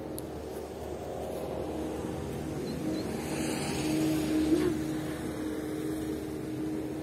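A motor vehicle passing by, its sound swelling to a peak about four and a half seconds in and then fading, over a steady low hum.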